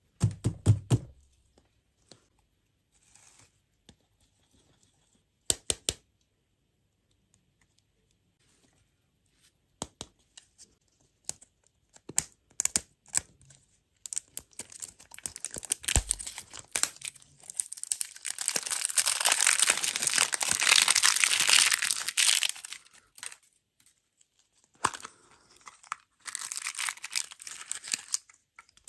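Plastic packaging crinkling and tearing as it is handled and opened, after a few sharp clicks and taps. The crinkling is longest and loudest in the middle stretch, with a shorter burst near the end.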